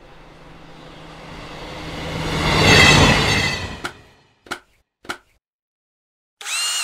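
Logo-intro sound effects: a swell of rushing noise and low rumble builds to a peak about three seconds in and fades. Then three short sharp hits land about half a second apart, and near the end comes a brief ringing tone that bends upward.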